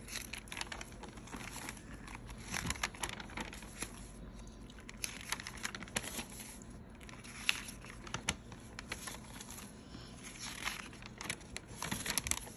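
Lined notebook pages being turned by hand. The paper rustles and crinkles in short bursts every couple of seconds.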